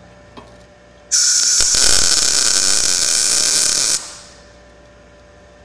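Blue Demon BLUEARC 140MSI MIG inverter welder striking an arc about a second in and running a tack on thin square tubing for about three seconds. It gives a steady, crisp crackle like frying bacon, then cuts off. The even crackle marks a clean, gas-shielded tack now that the shielding-gas problem is solved.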